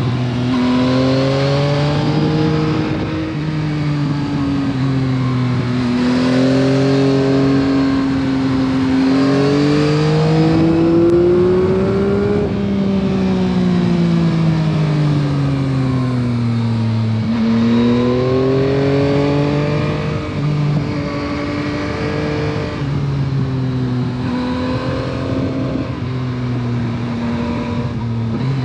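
Yamaha MT-09 SP's 890 cc three-cylinder engine on its stock exhaust, under way: the revs climb and fall repeatedly, with a long pull rising to a peak about twelve seconds in and then easing off, and brief dips that sound like gear changes.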